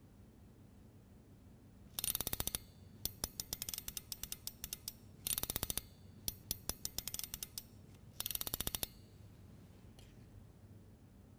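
Cylinder music box being wound by its side lever, its ratchet and pawl clicking in rapid runs. There are three dense runs of clicks, about 2, 5.5 and 8.5 seconds in, with scattered single clicks between, and the clicking stops a couple of seconds before the end.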